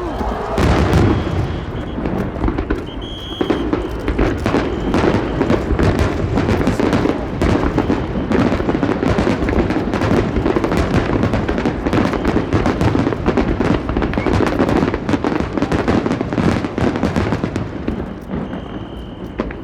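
Aerial fireworks display: a dense, continuous barrage of shell bursts and crackling, many reports a second with no pause.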